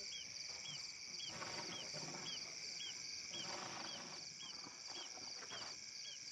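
Quiet night chorus of insects at a waterhole: a steady high trilling, with a short chirp repeating about twice a second. Faint soft sloshing and shuffling come from elephants drinking at the water's edge.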